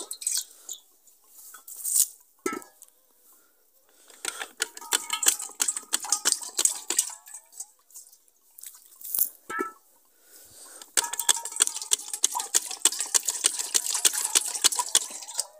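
Water splashing and sloshing in a steel cooking pot as it is rinsed by hand, in uneven bursts with light clinks of the metal.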